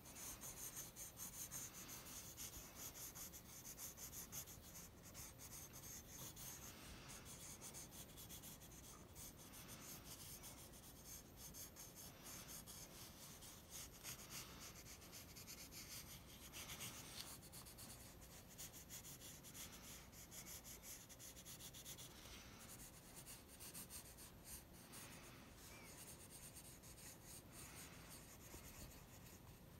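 Pencil scratching over sketchbook paper in rapid, continuous scribbling strokes, faint.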